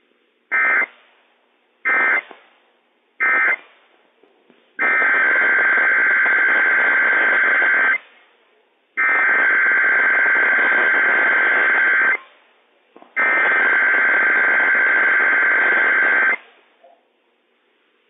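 Emergency Alert System SAME data tones on NOAA Weather Radio. First come three short bursts about 1.3 s apart: the end-of-message code closing one Required Weekly Test. Then come three long bursts of about three seconds each, separated by short gaps: the header opening the next test, long because it lists many counties.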